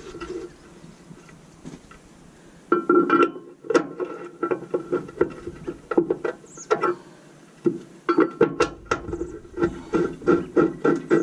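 A bolt being tightened on a rear bumper bracket inside a pickup truck's steel frame: metallic clicking and rattling that rings in the frame. It comes in scattered bunches at first, then from about eight seconds in settles into quick regular strokes, roughly two to three a second.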